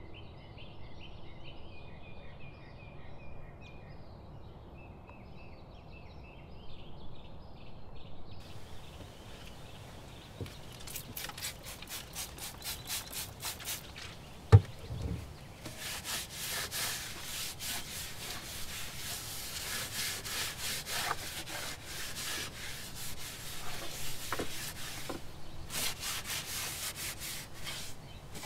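Cloth wiping a wooden plank countertop in fast back-and-forth strokes, a dry scratchy rubbing, with one sharp knock about halfway through. Small birds chirp for the first several seconds.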